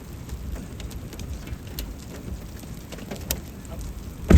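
Vehicle driving through a storm: steady low road rumble with scattered light ticks of rain on the car, and one heavy thump near the end.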